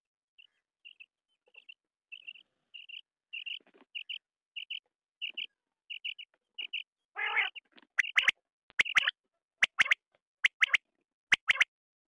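Quail calling: soft, short, paired notes that grow gradually louder, a longer, harsher note about seven seconds in, then loud, sharp, whip-like calls repeated about once every 0.8 s.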